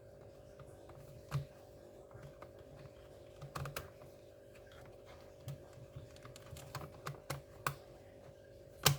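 Scattered small clicks and taps from handling an open laptop, irregular and unhurried, with a louder knock near the end. A faint steady hum underneath.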